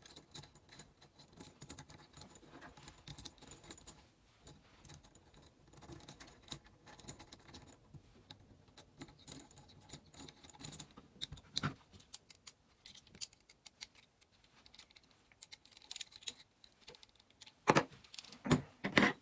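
Light clicks and rattles of small screws and robot-kit parts being handled while screws are turned by hand into the chassis. A few louder knocks come near the end.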